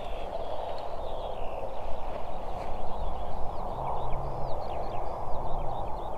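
Small birds chirping and twittering repeatedly over a steady outdoor rushing hiss with low, uneven rumbling.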